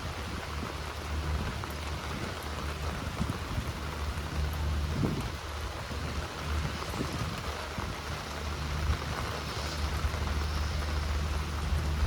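Steady rain falling, with scattered drops pattering close by, over a continuous low rumble.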